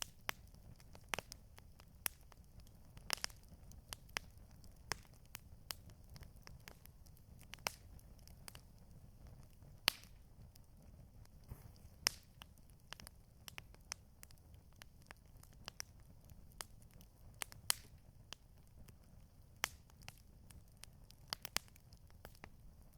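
Campfire crackling: irregular sharp pops and snaps, a few each second, over a steady low rumble.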